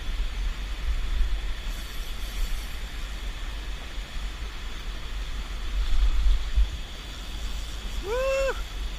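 Wind buffeting the camera microphone, a steady low rumble that swells and fades. Near the end comes a short vocal exclamation.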